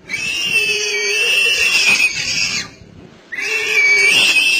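A prey animal squealing in distress while a lion bites into it and eats it alive: two long, loud, high-pitched squeals, the second starting after a short pause about three seconds in.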